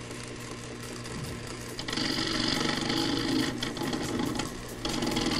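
A fast, steady mechanical clatter, like a small machine running. It gets louder with a whirring tone about two seconds in, eases, then swells again near the end.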